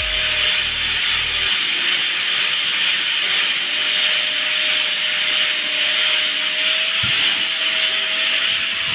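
Electric angle grinder running steadily, its disc grinding away the fibrous husk of a sprouting coconut: a constant whine over a dense hiss.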